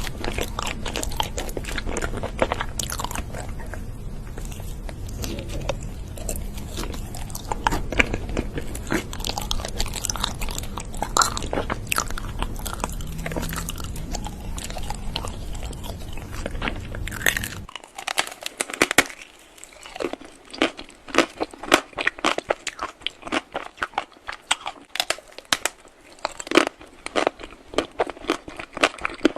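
Crunchy food being bitten and chewed, a quick run of sharp crunches. A low hum underneath cuts off abruptly about 18 seconds in, after which the crunches come separately with short quiet gaps between them.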